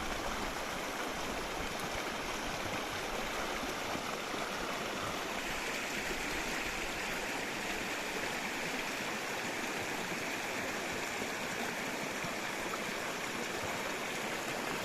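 Flowing water, a steady rushing without a break, its hiss growing slightly brighter about six seconds in.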